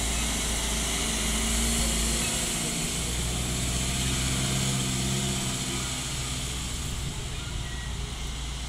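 Minibus engine running as the vehicle pulls slowly past, a steady low drone that is loudest about two seconds in and then slowly fades.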